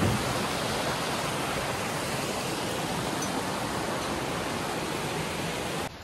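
Steady rushing of a large waterfall, cutting off abruptly near the end.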